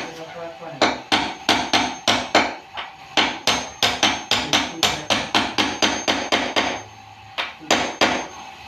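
Hammer blows in sofa-set repair work, struck in a steady run of about three a second. A brief pause follows, then three more blows near the end.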